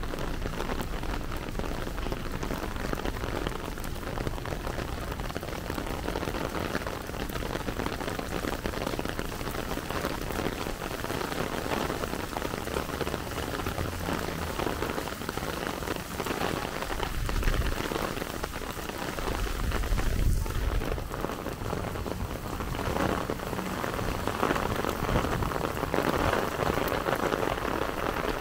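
Steady rain falling and pattering on surfaces, a continuous dense hiss of drops. A low rumble swells twice, about two-thirds of the way through.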